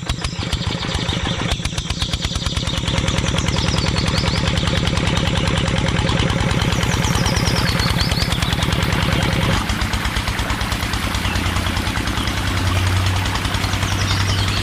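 An engine running with a fast, even beat, its note shifting lower and steadier about ten seconds in. Birds chirp faintly behind it.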